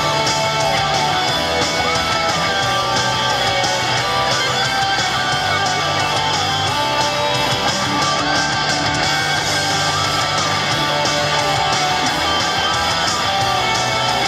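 Upbeat pop backing music with guitar and a steady beat, its melody line moving in held, stepped notes over a repeating bass.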